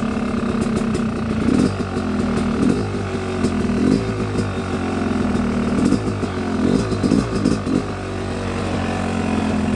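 Dirt bike engine idling steadily, with a series of short throttle blips in the middle.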